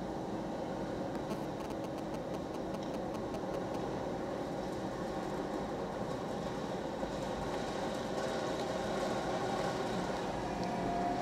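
Automatic car wash machinery running: a steady rumble and hiss of spraying water and motors, heard through the windows of a parked car. The hiss grows slightly near the end.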